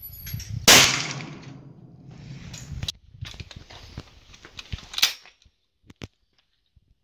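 Investarm .410 over-and-under shotgun firing one shot about a second in, the loudest sound here, with a short tail of echo. A few thinner sharp cracks follow over the next few seconds.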